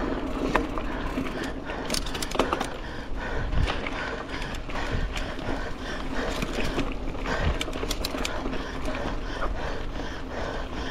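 Mountain bike ridden over a dirt trail: a steady rush of tyre noise with frequent clicks and rattles from the bike over bumps.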